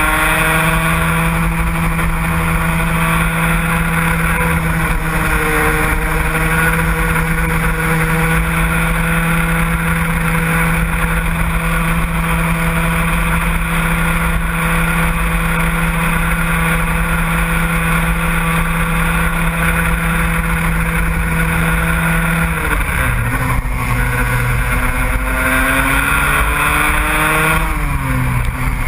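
A motor vehicle's engine running at steady high revs, with strong low rumble underneath. About three-quarters of the way through the revs drop, then climb again and fall once more near the end.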